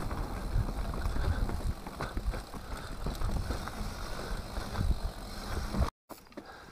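Enduro mountain bike riding fast down a dirt singletrack, heard from an on-board camera: a low rumble of tyres on the trail, frequent knocks and rattles from the bike, and wind on the microphone. The sound cuts out abruptly about six seconds in and comes back much quieter.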